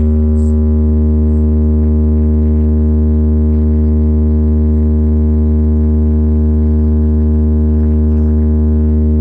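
A loud, steady low bass drone held on one unchanging note with a buzzy ring of overtones: a sustained synthesized bass tone played through a DJ sound-box system as a sound check.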